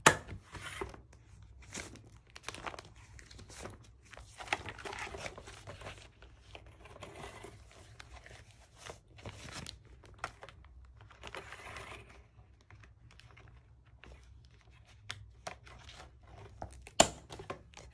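Clear plastic sheet protectors in a ring binder crinkling and rustling as the pages are handled and turned, with scattered small clicks and two sharp clicks, one at the very start and one about a second before the end.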